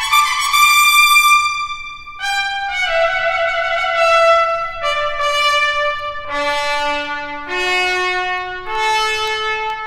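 Solo trumpet playing a series of held notes. It opens on a high note reached by an upward slur, then steps down note by note to a low note and climbs back up.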